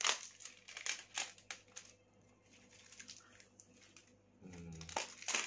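Crinkling and tearing of packaging as a small vape pod box is opened by hand. Sharp irregular rustles come thickly in the first two seconds, thin out in the middle, and pick up again near the end.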